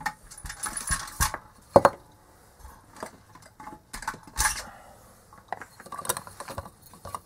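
Plastic parts of a disassembled LED bulb and hand tools being handled and set down on a work mat: irregular clicks, taps and knocks, the loudest a little under two seconds in and again just past four seconds.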